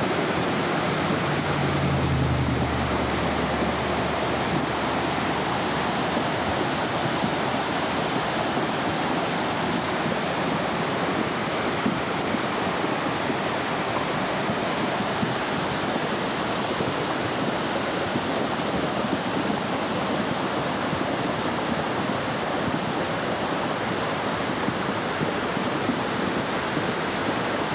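Swollen river in flood, its churning floodwater rushing past in a steady, unbroken roar.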